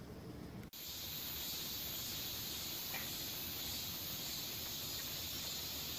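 Steady, high-pitched hiss of an insect chorus chirring, starting after a brief cut in the sound about a second in.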